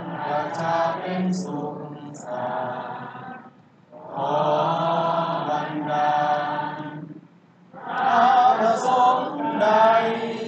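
Slow singing in long drawn-out phrases, broken by short pauses twice.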